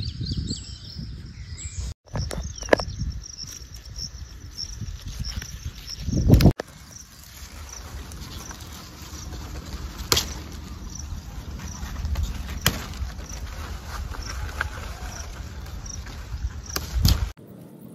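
Field ambience: an insect chirps in short, high, regular pulses about once or twice a second, over a low rumble of wind and handling on the microphone. A few sharp clicks and rustles come from hands moving through the okra plants.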